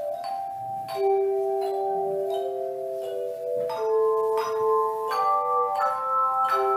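Tone chimes, hand-held tuned metal tubes sounded by a clapper, playing a slow melody in chords. A new note or chord is struck about once a second, and each one rings on, so several notes sound together.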